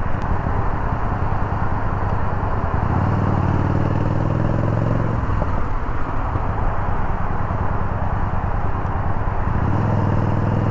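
Yamaha Bolt's air-cooled V-twin engine running at a steady pitch while riding in traffic, under heavy wind and road noise. The engine's hum grows loud about a third of the way in, drops back around halfway, and comes up again near the end.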